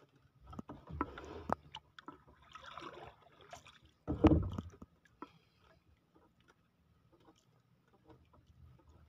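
Knocks and bumps of a wooden oar being handled in a small wooden boat: a quick run of sharp knocks in the first second and a half, then one loud thump about four seconds in.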